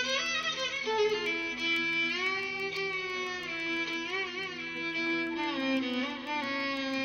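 Background music led by a violin, playing long held notes that waver slightly in pitch.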